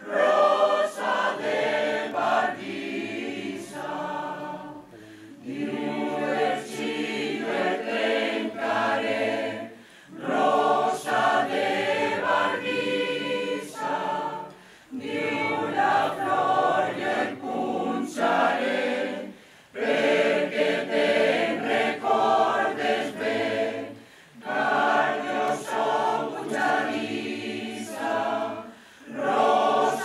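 Mixed choir of women's and men's voices singing a cappella, in phrases of about four to five seconds with short breaks between them.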